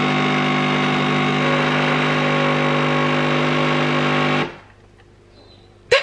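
Home espresso machine's pump buzzing steadily as it pulls a double shot, then cutting off abruptly about four and a half seconds in. A sharp click follows near the end.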